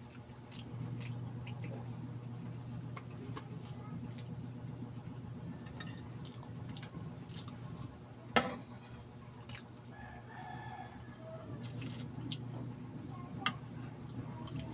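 Close-miked eating sounds: chewing and lip smacking with small clicks, and one sharp clink of a metal spoon against the glass dish about eight seconds in. A rooster crows in the background about ten seconds in.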